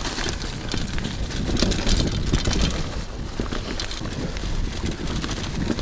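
Mountain bike riding over a dirt trail: continuous tyre rumble with frequent knocks and rattles from the bike over rough ground, mixed with wind noise on the microphone.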